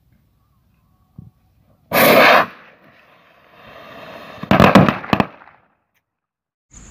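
Firework going off: a loud rushing burst about two seconds in, a fading hiss, then a cluster of sharp bangs and crackles about two and a half seconds later.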